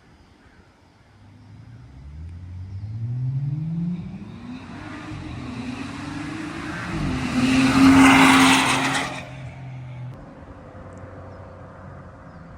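BMW 535i F10 with bolt-on modifications, its turbocharged straight-six accelerating hard past the microphone. The engine pitch climbs through one gear, drops at a shift about four seconds in, then climbs again. It is loudest as the car goes by at about eight seconds, then falls away about ten seconds in.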